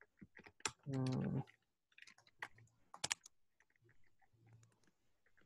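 Typing on a computer keyboard: a run of quick, light key clicks, with a short hummed voice sound about a second in.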